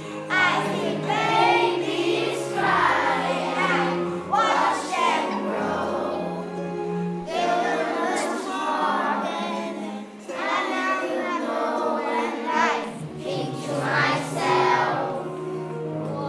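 A group of children singing a song together, over a steady instrumental backing.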